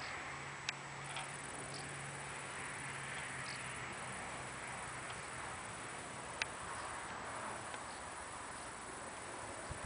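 Quiet outdoor garden ambience: a steady faint hiss with a low hum that fades out a few seconds in. Two sharp clicks stand out, one near the start and a louder one past the middle, along with a few faint short chirps.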